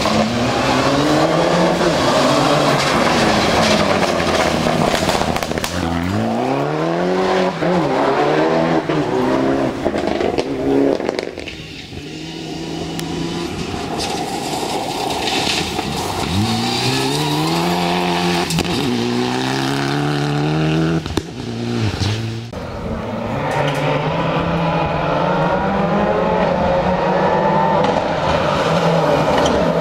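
Rally cars' turbocharged four-cylinder engines, among them Mitsubishi Lancer Evolutions and a Ford Focus WRC, revving hard and accelerating flat out through the gears. Several times the pitch climbs steeply and then breaks off, and the sound changes abruptly between short stretches.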